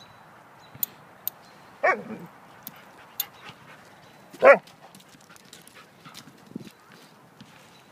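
Dogs at rough play: two short barks about two and a half seconds apart, the second louder, with scattered light clicks and scuffles between them.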